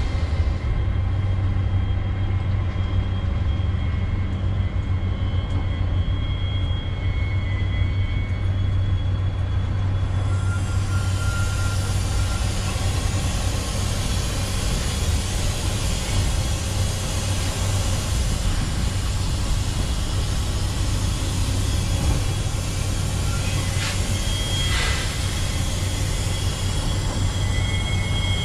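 Diesel tractor-trailer reversing slowly into a loading dock: a steady low engine rumble, joined about ten seconds in by a rushing hiss, with thin high squealing tones coming and going.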